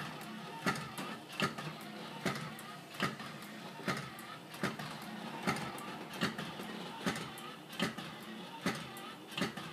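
Clockwork-like motor mechanism of a vintage 1950s animated poodle display figure running, with a steady hum and an even click a little more than once a second as its head and mouth move.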